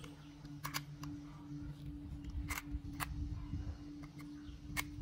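Sharp little plastic clicks from an AirPod and its charging case being handled by gloved hands: a close pair near the start, then single clicks spread through the rest, with soft rubbing in between. A steady low hum runs underneath.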